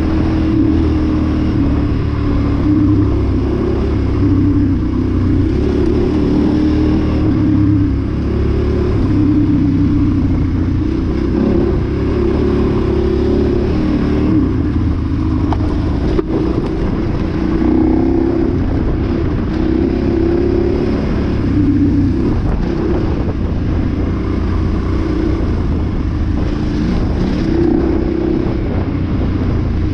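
Off-road motorcycle engine running while riding a rough dirt trail, its pitch rising and falling with the throttle. One sharp knock about halfway through.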